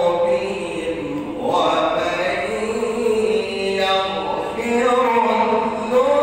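A man reciting the Quran in slow, melodic chanted recitation (tajweed), drawing out long notes that rise and fall in pitch.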